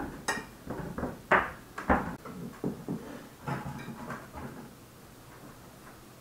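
A wooden serving platter and plates being set down and shifted on a dining table: a string of sharp knocks and clinks over the first four seconds or so, the loudest two near the middle, then it goes quiet.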